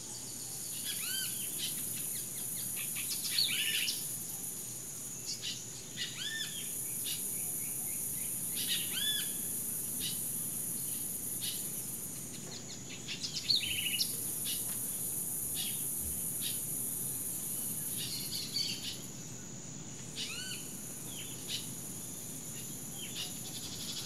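Rainforest ambience: birds giving repeated short arched chirps and a few quick trills, over a steady high-pitched insect drone. A second, higher insect buzz cuts out twice for a second or two.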